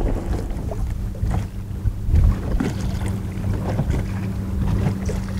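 Wind rumbling on the microphone and water slapping against a bass boat's hull, over a steady low hum, with a few short knocks.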